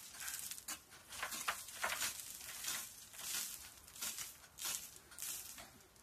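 Pickaxe chipping at a cave's rock ceiling: repeated uneven strikes, about two a second, each with a hiss of loosened grit falling. It eases off near the end.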